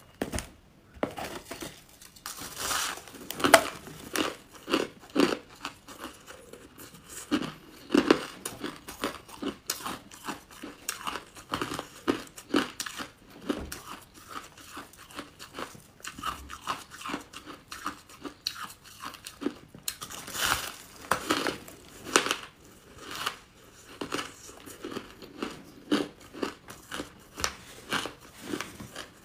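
Crunchy buckwheat chunks crunching as they are broken apart by hand, bitten and chewed: an irregular run of crisp crunches with brief pauses, louder in a few clusters.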